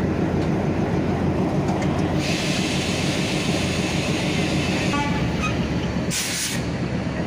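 Diesel locomotive engine running steadily with a low hum. A long hiss comes in about two seconds in, a few light ticks follow near five seconds, and a short sharp hiss sounds about six seconds in.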